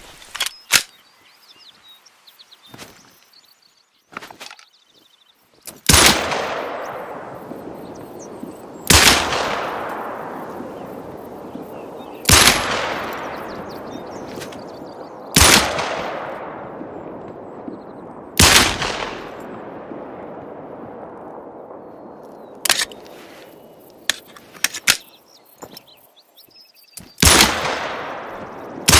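Glock pistol fired in single shots, about three seconds apart, each crack followed by a long echoing decay. After six shots there is a pause with a few fainter sharp clicks, then another shot near the end.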